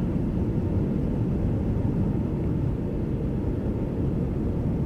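Steady noise of a KC-135 Stratotanker in flight on final approach, heard from inside the aircraft: even engine and airflow noise with a faint steady whine.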